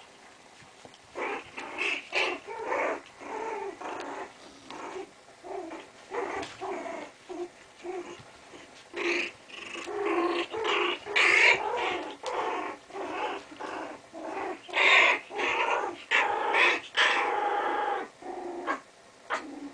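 Chinese Crested puppies play-growling in many short, irregular bursts as they wrestle, starting about a second in.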